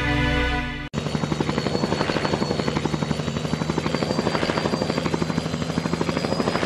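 Background music cuts off about a second in and gives way to a Mi-8-type military helicopter flying past, its rotor beating in a steady, rapid pulse.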